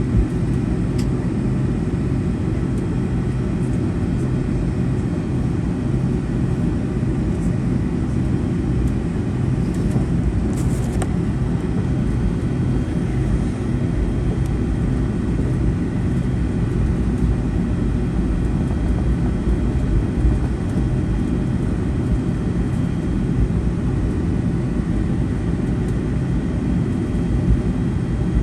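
Steady low rumble inside a Boeing 757-200 passenger cabin, with a brief faint hiss about ten seconds in.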